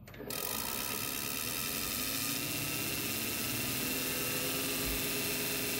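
Sun 404 distributor tester's drive motor starting about a quarter second in and running with a steady whir, spinning a distributor up toward 2,500 rpm, a faint tone rising slowly as it comes up to speed.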